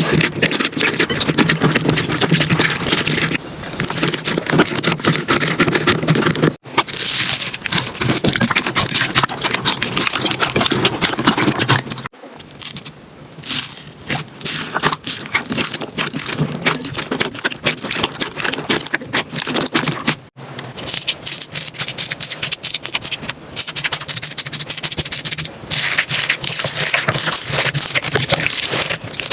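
Slime being squeezed, poked and stretched by hand, giving dense crackling clicks and pops. The sound breaks off and changes texture four times as one clip gives way to the next.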